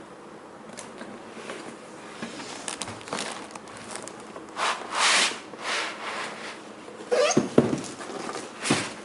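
Laptop packaging being handled as the notebook is unboxed: cardboard and packing material rustle, slide and scrape in several short bursts. The loudest swishes come about five seconds in and again near the end.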